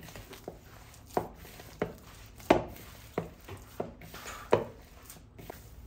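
Hand kneading soft, buttery dough in a bowl. The dough is pressed and slapped against the bowl in a series of irregular soft thumps, roughly one or two a second, as it comes together into a ball.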